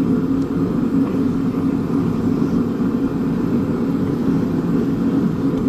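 A steady, unbroken low mechanical drone, like a running machine or engine.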